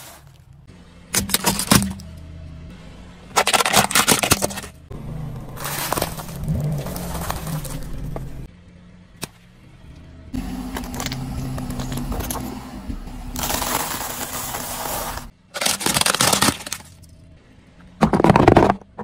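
A car tyre slowly rolling over and crushing a string of objects on asphalt, snack packets and plastic balls among them. It makes a series of loud crunching, cracking bursts, about six in all, with quieter stretches between them.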